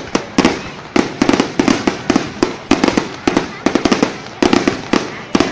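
Fireworks display: a rapid, continuous barrage of bangs, several a second, each with a short boom.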